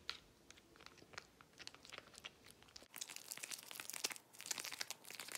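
Faint, irregular crackling and clicking from a small plastic cup of green shampoo slime being handled and tilted, sparse at first and busier from about three seconds in.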